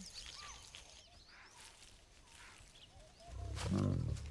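Faint bird chirps over quiet natural background, then a little over three seconds in a male lion's deep growl starts and grows loud.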